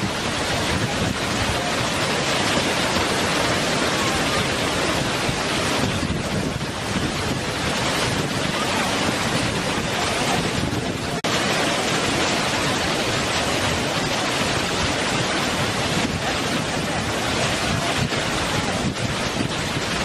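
Waterfall cascading over rock: a steady rush of falling water, with a brief dip about eleven seconds in.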